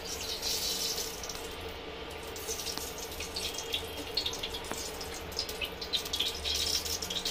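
Cooking oil ladled from a steel oil pot and poured into a pressure cooker, trickling and dripping, with light clicks of the ladle against the steel.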